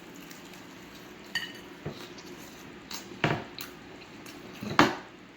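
Handling of takeout food and sauce containers while eating: a few separate taps, clicks and clinks, one with a short ringing tone about a second in, the loudest knock near the end.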